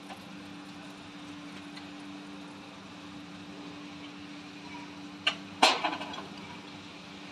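Steady electrical hum, broken by two sharp clicks about five seconds in, the second louder; the higher tone of the hum stops at the second click.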